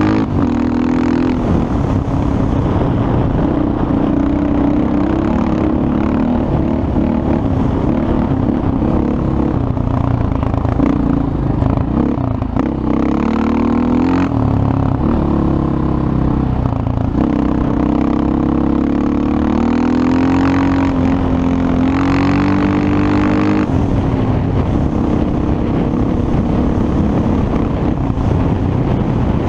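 Yamaha Raptor 700SE quad's single-cylinder four-stroke engine running hard under throttle, its pitch rising and falling as the rider works the throttle, with a dip about halfway through and a rise a little later.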